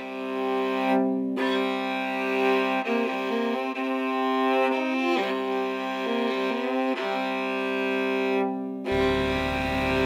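Slow instrumental music of bowed strings, long held notes that change pitch in steps. Near the end a low steady hum joins underneath.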